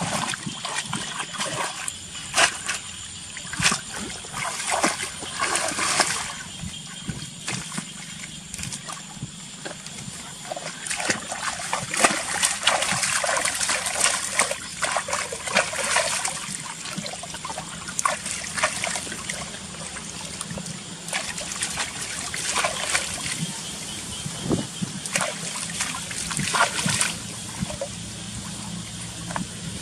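Water splashing and trickling in irregular bursts, busiest around the middle.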